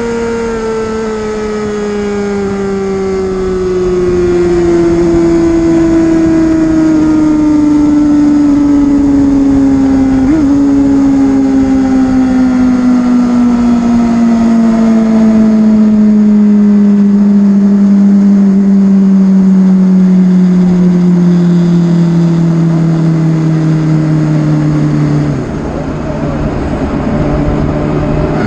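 Yamaha R6 inline-four motorcycle engine, its pitch falling slowly and steadily from a high-revving scream to mid revs as the bike slows. About 25 seconds in, the tone drops abruptly to a lower pitch and level.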